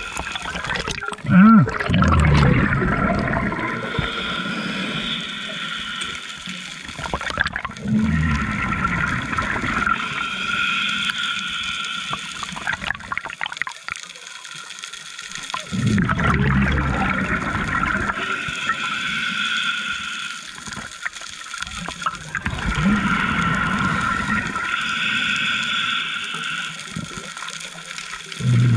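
Scuba diver breathing through a regulator underwater: a steady hissing inhale, then a burst of exhaled bubbles, repeating about every seven seconds, four times.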